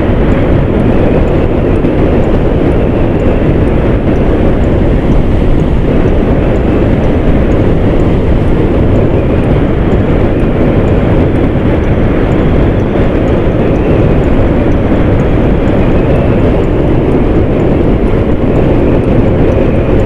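Hero Xtreme 160R motorcycle cruising steadily at speed: a loud, even rush of wind over the microphone mixed with engine and tyre noise.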